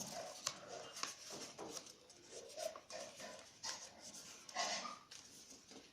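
Sheet of origami paper being folded and creased by hand: soft crinkling and rustling, with a scatter of small sharp crackles as folds are pressed flat, and a brief louder rustle late on.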